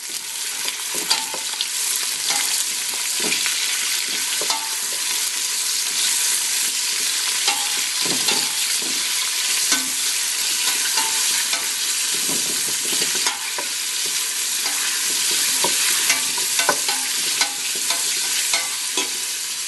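Onions sizzling in hot oil in a soup pot while being stirred, a steady frying hiss with frequent scrapes and knocks of the utensil against the pot.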